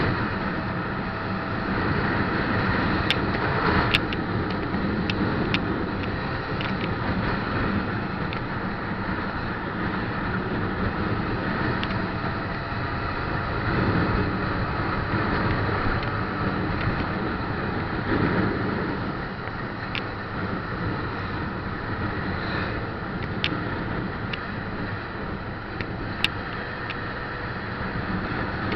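Steady engine and road noise of a vehicle driving along, with a few sharp clicks or knocks scattered through it.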